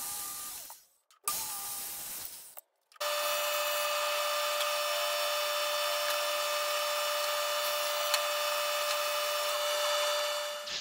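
A handheld circular saw cutting plywood in two short stretches, each cut off suddenly. About three seconds in, a SawStop cabinet table saw takes over, running steadily with an even whine.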